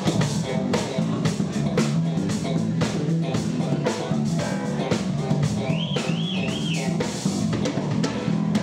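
Live band music: an extended-range electric bass plays a busy bass line over a drum kit beat, with a brief high wavering note about six seconds in.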